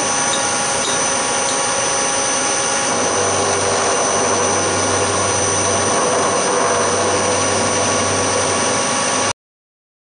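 Milling machine spindle running with an end mill taking passes across a steel block, a steady whine made of several held tones. A low hum joins about three seconds in, and the sound cuts off suddenly near the end.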